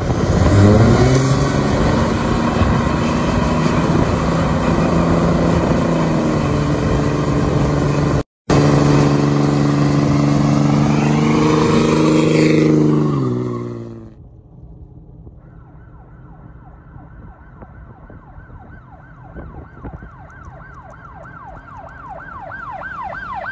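A Dodge Ram 2500 Mega Cab's swapped-in 5.9 common-rail Cummins inline-six diesel pulls up in revs and then runs steady under throttle, rising briefly and fading away about 13 seconds in. After that a fainter siren wails up and down several times a second, growing louder near the end.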